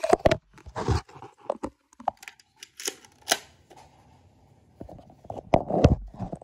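Rustling handling noise with scattered knocks and clicks, from a body-worn camera rubbing against clothing as the wearer moves.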